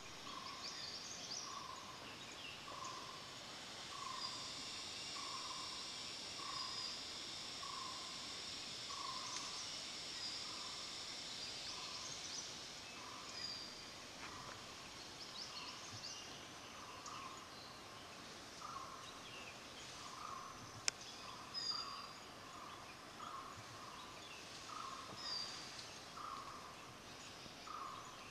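Faint forest background: a short call repeated about once a second, with scattered higher bird chirps over a steady high hiss. There is one sharp click about three-quarters of the way through.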